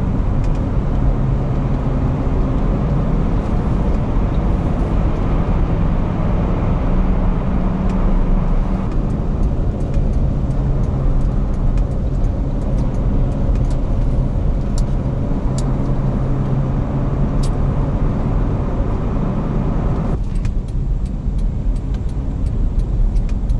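Car driving, heard from inside the cabin: a steady engine hum with tyre noise on a slushy road. The higher hiss drops away about twenty seconds in.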